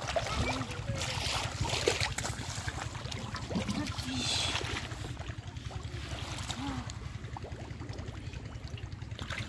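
Water sloshing and splashing as a person wades knee-deep through shallow, muddy water and gropes in it by hand, with louder splashes about a second in and again around four seconds in, over a steady low rumble.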